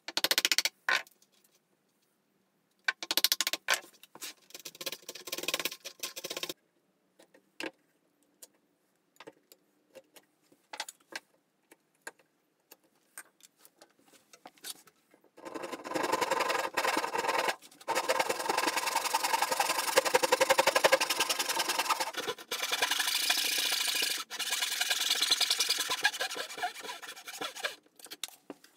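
A wooden mallet strikes a chisel in softwood a few times, followed by scattered knocks of tools on the workbench. From about halfway, a hand saw cuts through the wood in a long run of continuous back-and-forth strokes.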